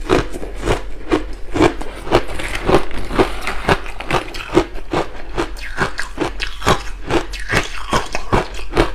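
Ice chunks coated in matcha and milk powder being bitten and chewed close to the microphone: a fast, irregular run of sharp, loud crunches, several a second.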